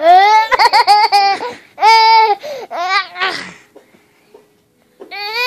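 A toddler girl laughing: high-pitched giggles and squeals in several bursts, with one long held squeal about two seconds in. She falls quiet for about a second, then starts laughing again near the end.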